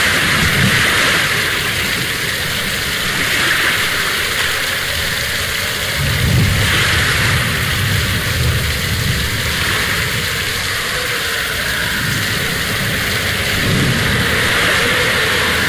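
Wind buffeting the microphone in uneven low rumbles that swell and fade, over a steady outdoor hiss.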